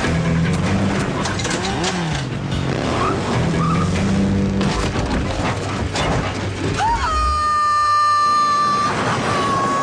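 Animated action soundtrack: vehicle engine and motion sound effects over a music score. A steady high whine is held for a couple of seconds near the end, then glides down.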